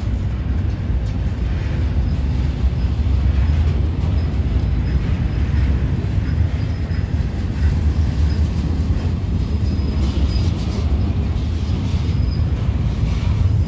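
Double-stack intermodal freight cars rolling past on street-running track: a steady, loud, low rumble of steel wheels on the rails.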